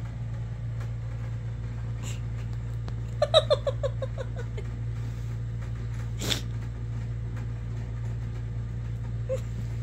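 A cat gives a quick run of about eight short chirping calls, falling slightly in pitch, over a steady low hum. A single soft rustle or thump follows a couple of seconds later, and one faint short chirp comes near the end.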